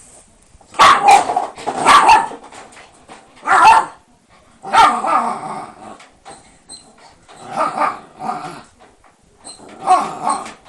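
Shiba Inu barking in separate loud bursts, about six times with short pauses between.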